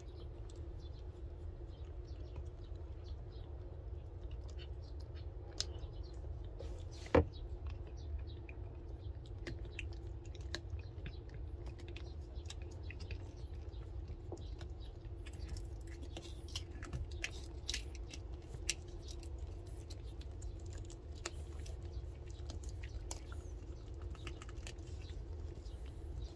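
A calico cat licking a Ciao Churu paste treat from a hand-held tube: a patter of small wet clicks and smacks, denser in the second half, with one sharper click about seven seconds in, over a low steady hum.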